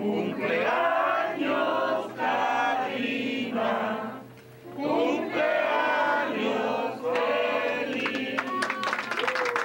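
A group of people singing together in phrases with short breaks, and hand clapping breaking out near the end.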